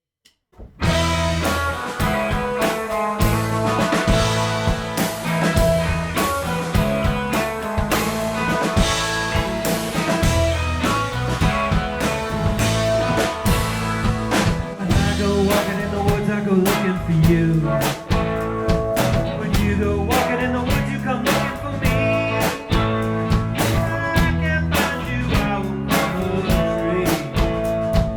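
A rock band playing an instrumental intro on drum kit, bass and guitars, with a steady beat. It starts suddenly under a second in.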